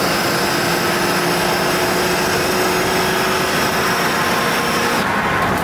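Cabin noise of a 1978 Mercury Colony Park station wagon cruising at highway speed: its 460 V8 runs under steady road and wind noise, with a thin high whine on top. The whine cuts off about five seconds in.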